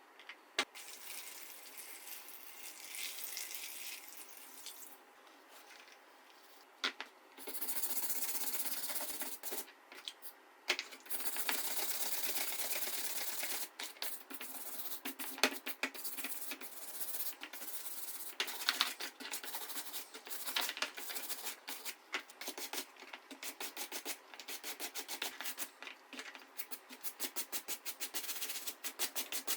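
Abrasive scraping or rubbing by hand, first in irregular longer strokes and stretches, then in quick back-and-forth strokes a few times a second in the later part.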